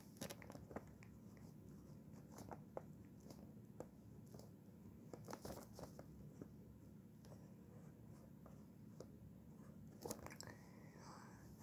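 Near silence, with faint, scattered scratches and taps of a pen on paper during handwriting.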